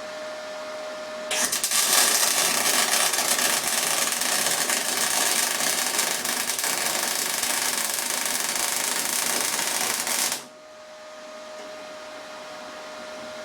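Electric arc welder running a weld for about nine seconds, a loud steady crackle that starts suddenly and cuts off when the arc is broken. Before and after it a steady hum with a thin whine carries on.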